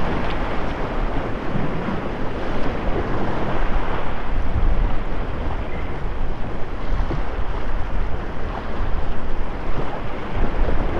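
Wind buffeting the microphone over the steady wash of ocean surf breaking on a rock jetty.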